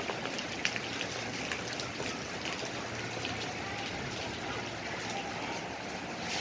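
Heavy rain falling: a steady hiss with scattered sharp ticks of drops hitting nearby surfaces.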